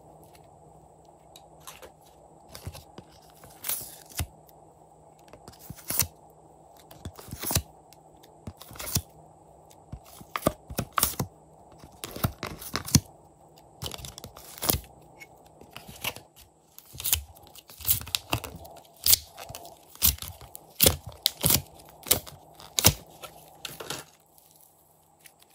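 Thick, doughy slime being squeezed, stretched and torn apart by hand, giving irregular sharp crackling pops and tearing sounds that come thicker in the second half.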